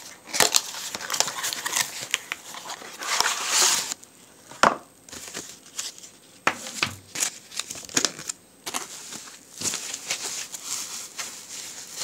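Plastic packaging and bubble wrap crinkling and rustling in irregular bursts, with a few sharp clicks and knocks, as a part is pulled out of a cardboard box.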